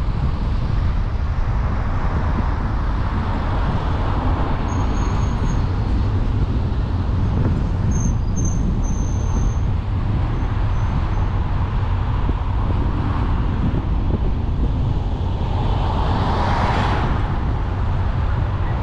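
Steady road noise from a car driving along a town street: low engine and tyre rumble under a hiss of air and tarmac. About sixteen seconds in, another vehicle passes close by, swelling and fading.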